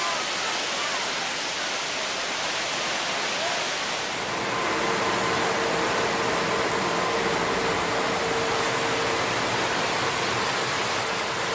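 Roar of the Horseshoe Falls at Niagara: a dense, steady rush of falling water and spray. About four seconds in it grows a little louder, and a steady hum joins it.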